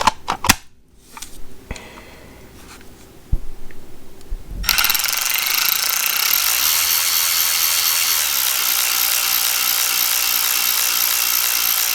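Milwaukee M12 cordless electric ratchet: a few handling clicks, then about five seconds in the motor starts and runs steadily at speed, spinning the ratchet head.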